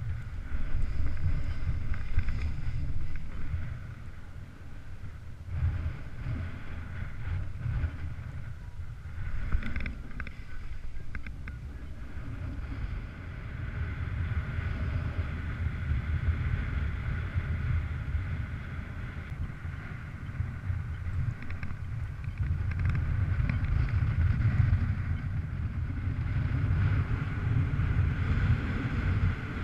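Airflow buffeting the microphone of a paraglider's camera in flight: a low rumble that swells and eases, with a faint steady higher tone that grows stronger in the second half.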